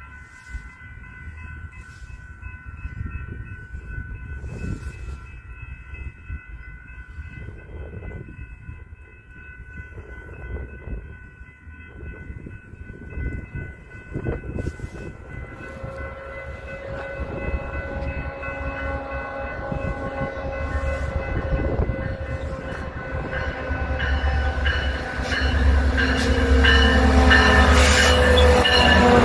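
Metra F59PHI diesel locomotive No. 87 pulling a commuter train into the station, its engine and wheels growing steadily louder over the second half and loudest as it draws alongside near the end, with wheel and brake squeal as it slows to stop.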